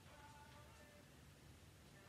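Very faint background music over near silence, a few soft held notes over a low hum.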